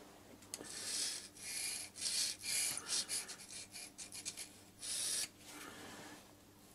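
A thin metal pick scraped over a freshly face-milled steel surface in a run of short, irregular scratchy strokes, followed near the end by a softer fingertip rub across the same surface. The scraping is feeling out the roughness of the milled finish.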